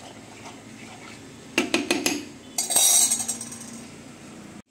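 A metal spoon stirring a thin coconut-milk batter in a nonstick pan: a quick run of clinks against the pan a little over a second and a half in, then a louder scrape about a second later.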